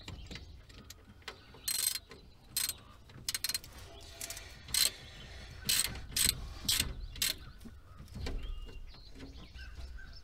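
Ratchet wrench clicking in short strokes, tightening a bolt to fit a temporary battery ground cable. The clicks come singly and in small groups, about once or twice a second.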